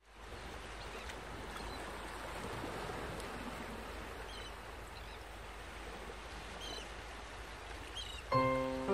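Seaside ambience: a steady wash of waves with a few faint, short bird calls. Instrumental music begins near the end with held notes.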